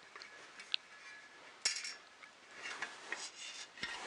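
Small clicks, a short squeak and rubbing scrapes of 3D printer kit parts being handled and fitted together, with a sharp click about a second and a half in and a run of scraping near the end.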